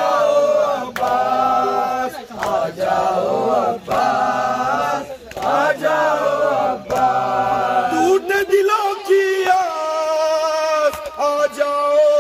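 Men's voices chanting a nauha, a Shia lament for Imam Hussain, through a microphone, with slaps about once a second from chest-beating matam. About eight seconds in, the chant moves to higher, longer held notes.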